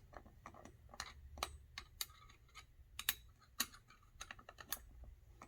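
Faint, irregular clicks and ticks of a 14 mm wrench tightening the bolts of the bicycle's seat post clamp, a few clicks a second at uneven spacing.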